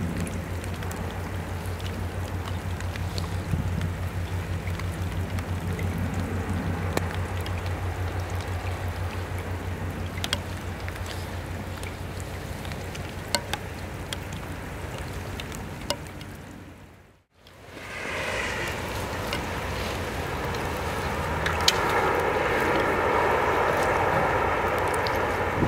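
Rain falling, with scattered sharp drip ticks, under a low, steady engine drone that fades away about two-thirds of the way in. After a brief dropout, wind and rain noise comes in louder.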